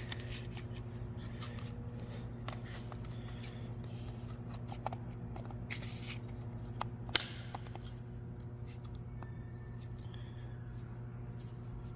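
Scattered light clicks and rattles of small parts being handled while an RC car's transmission and clutch are fitted, one sharper click about seven seconds in. A steady low hum runs underneath.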